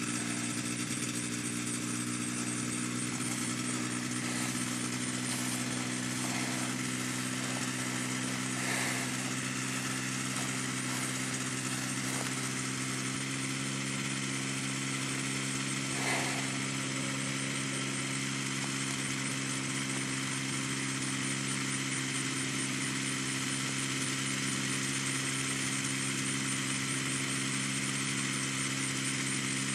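Powered paraglider trike's engine idling steadily at an even pitch.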